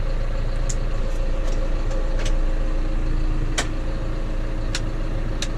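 Tractor engine running steadily at an even speed: a low hum with a faint steady whine over it, and a few light clicks scattered through.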